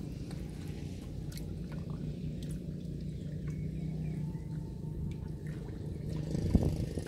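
A hand sloshing and squelching through shallow muddy water in a dug pit while catching eels, with small drips and splashes, over a steady low hum. A louder thump comes about six and a half seconds in.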